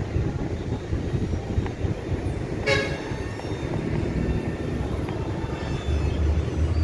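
Steady low outdoor rumble, with one short horn toot a little before the middle.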